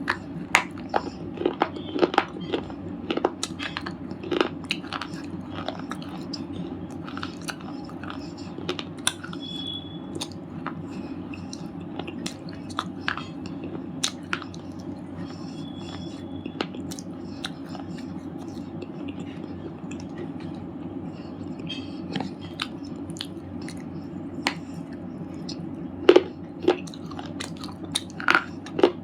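Red slate chips being bitten and chewed: dry, sharp crunches and cracks at irregular intervals. They come thickly near the start, thin out through the middle and pick up again near the end.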